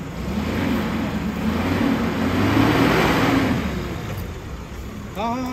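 Heavy lorry's engine revving under load as the truck drives up out of the riverbed, getting louder toward the middle and then easing off. A man's voice is heard briefly near the end.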